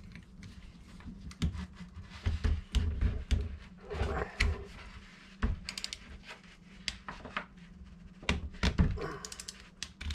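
Scattered metal clicks and knocks from a Park Tool LRT-4 lockring tool and a crowfoot wrench working a Shimano direct-mount chainring lockring while it is forced loose. Heavier thumps come in two clusters, and a brief whine-like sound comes about four seconds in.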